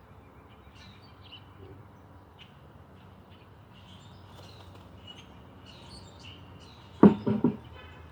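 Small birds chirping on and off. About seven seconds in, three quick thumps come close together, much louder than the birdsong.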